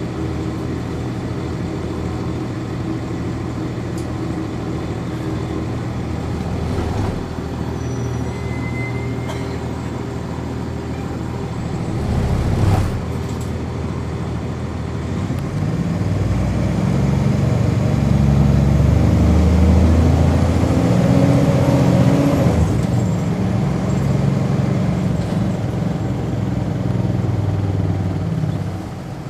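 Cummins ISC diesel engine of a 1999 NovaBus RTS transit bus heard from on board, running steadily at first. Just before halfway a short hiss of air cuts through, then the engine works harder and louder, its note climbing and changing as the bus accelerates, easing off near the end.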